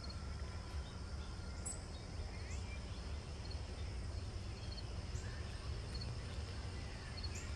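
Outdoor ambience: a steady low rumble under a continuous high insect drone, with a few short bird chirps.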